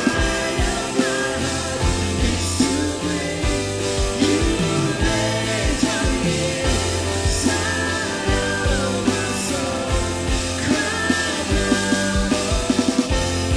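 A live rock-style worship band playing: a drum kit keeping a steady beat under bass guitar, electric guitar and keyboards.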